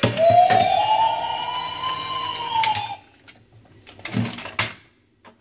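Electronic siren of a Huile bump-and-go toy fire truck, a single wail slowly rising in pitch from its small speaker, cut off suddenly about three seconds in. A few plastic knocks follow as the toy is picked up and turned over.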